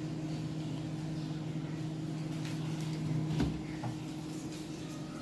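Steady low hum of a running Polytron two-door refrigerator, with a soft knock about three and a half seconds in.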